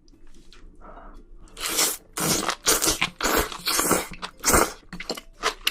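A person eating spicy seafood: loud, crunchy chewing and biting in quick, irregular bursts, starting about a second and a half in.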